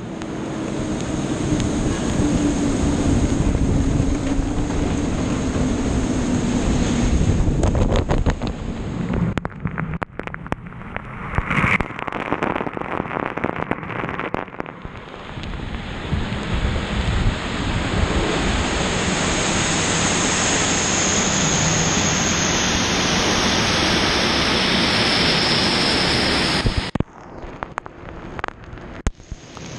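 Water spraying and drumming against the car and camera in an automatic tunnel car wash, with the rotating cloth brushes and wash machinery running and a steady high whine above it. The noise drops off sharply near the end.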